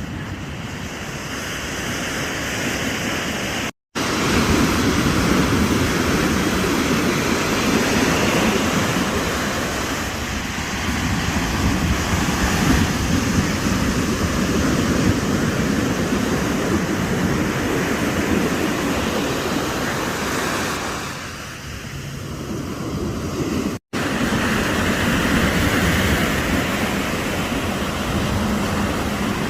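Ocean surf breaking and washing onto a beach: a steady rushing that swells and eases over several seconds. It drops to silence for an instant twice.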